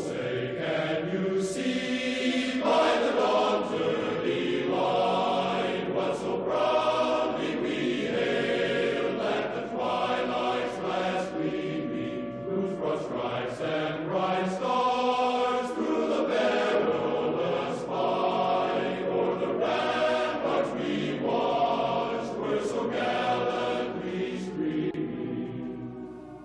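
Choral music: a choir chanting in long, held notes that change every second or two.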